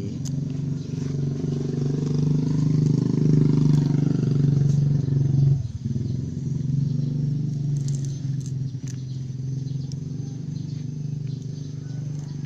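A motor engine running steadily with a low hum, louder for the first five seconds, briefly dipping about six seconds in, then continuing.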